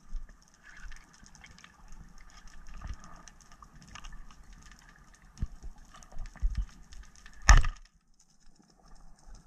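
Underwater ambience picked up by a diver's camera: a steady faint crackling with a few soft low bumps, and one sharp loud knock about seven and a half seconds in.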